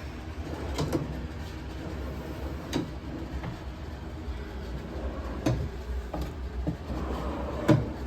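Scattered knocks and thumps, about six, the loudest near the end, over a steady low rumble: movement through a house with the camera in hand, with footsteps and doors or fixtures being handled.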